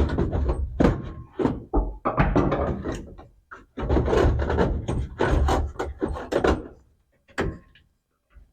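Repeated clunks, knocks and rattling of parts being worked loose and handled during teardown of a classic pickup's dash, dense and irregular for about seven seconds, then one last knock.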